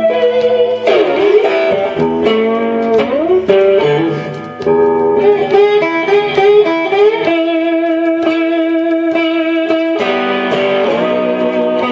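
Bottleneck slide played on a Telecaster-style electric guitar, a blues slide solo: notes glide up and down into one another, with a long held note in the second half.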